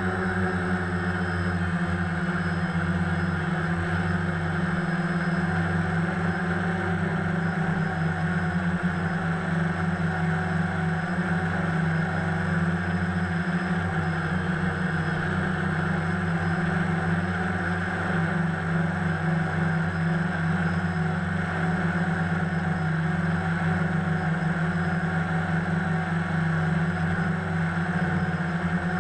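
DJI Phantom quadcopter's electric motors and propellers in flight, a steady hum with a few fixed tones, picked up by a GoPro in a waterproof housing mounted on the drone.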